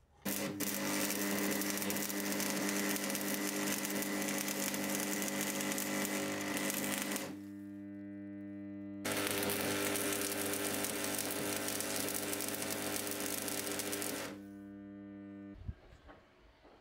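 Electric arc welding on a clamped stack of 1084 and 15N20 steel plates, joining the layers into a Damascus billet. There are two long runs of loud, even arc crackle, the first about seven seconds and the second about five. Between and after them the welder gives a steady electrical hum, which stops shortly before the end.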